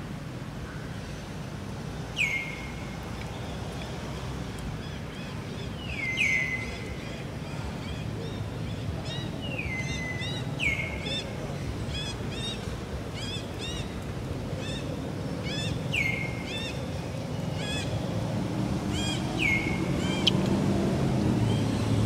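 A bird calling over and over, each call a sharp drop in pitch onto a short held note, every three to four seconds, with quicker faint chirps in between. A low hum runs underneath and grows louder near the end.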